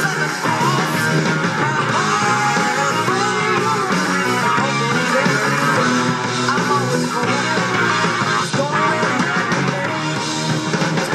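Rock music with guitar, playing continuously at a steady level.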